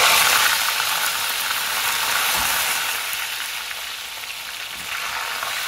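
Soaked chana dal dropped into very hot mustard oil in a kadhai, deep-frying with a loud sizzle. The sizzle is loudest as the dal goes in, eases over the first few seconds, then settles to steady frying.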